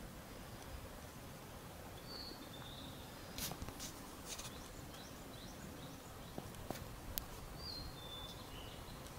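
Faint outdoor ambience with a small bird giving a few short high chirps, about two seconds in and again near the end. A few soft clicks fall in the middle.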